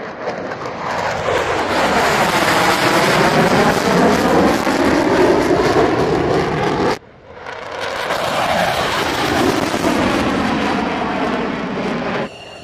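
Fighter jet passing low overhead: loud jet engine rush with a sweeping, phasing whoosh as it goes by. It cuts off abruptly about seven seconds in, and a second low pass of the same kind follows.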